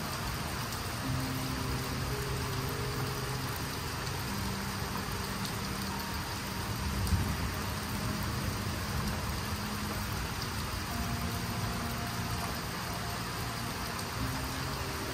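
Steady rain falling on the trees and wet ground, an even hiss. Faint low notes of music change pitch underneath, and there is a brief low thump about seven seconds in.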